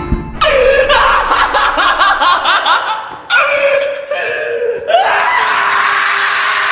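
Black-and-tan Shiba Inu screaming in long, wavering cries while held down and handled on an examination table: a distressed protest at being restrained. Three cries, the last rising in pitch and held longest.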